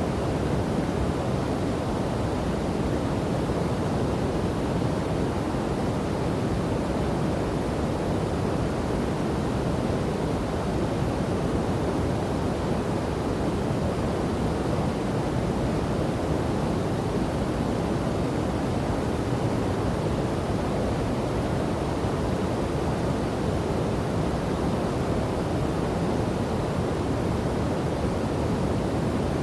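Waterfall and river water rushing steadily, a constant deep wash of noise with no changes.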